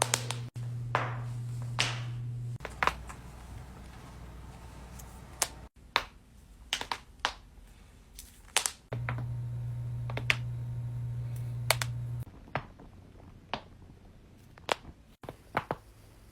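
Human joints cracking: about twenty sharp pops and cracks, some single and some in quick runs of two or three. A steady low hum runs under a couple of stretches.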